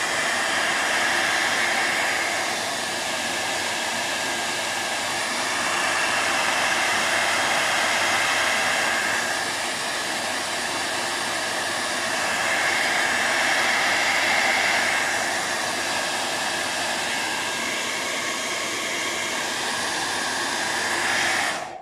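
Hair dryer running steadily to dry a layer of wet paint on paper. Its level swells and eases a few times, and it switches off suddenly at the very end.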